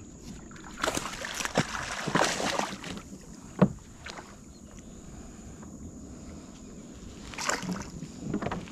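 Scraping, rattling and knocking on a kayak as things are handled aboard, with one sharp knock about three and a half seconds in and more scraping near the end.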